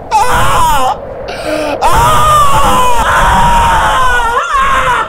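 A man wailing in anguish, without words. A short cry is followed by a long, drawn-out wail whose pitch wavers and bends, running from about two seconds in until near the end.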